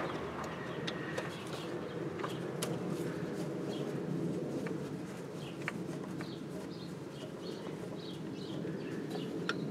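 Birds chirping outdoors over a steady low background noise, with a few small clicks and taps of hand tools on the carburettor jets.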